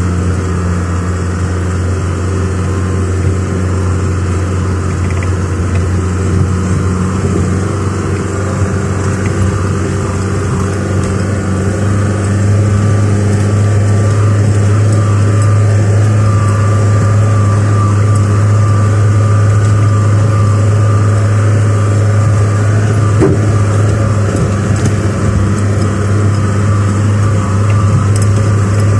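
Car engine running steadily while driving, heard from inside the cabin as a low, even drone that grows somewhat louder about twelve seconds in.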